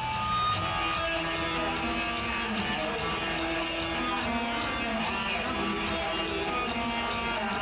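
Live rock band playing at full volume, with distorted electric guitars, bass, keyboards and a steady drum beat. It is heard as an audience recording in a large hall.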